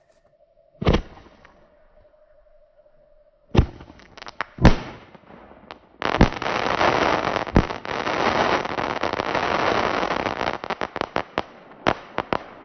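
Boomer Fireworks crackling artillery shell going off: a sharp bang about a second in, two more bangs a few seconds later, then about six seconds of dense crackling that thins into scattered pops near the end.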